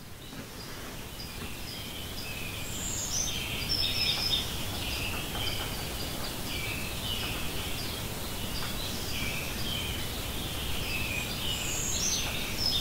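Woodland ambience fading in over the first few seconds: many small birds chirping and trilling throughout, over a steady low background noise.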